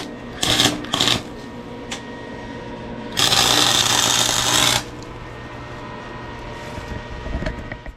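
Welding on steel: two short bursts of crackling arc about half a second and a second in, then a longer bead of about a second and a half in the middle, over a steady motor hum.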